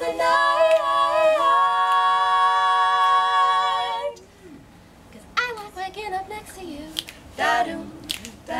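Three women's voices singing a cappella in close harmony, holding one long chord for about four seconds before it cuts off together, followed by a few short, quieter vocal phrases.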